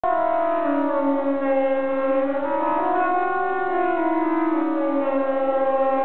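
Swiss civil defence siren sounding the general alarm signal ('Allgemeiner Alarm') in its annual functional test: a steady wail that slowly falls and rises in pitch, about one cycle every four seconds, with several siren tones overlapping.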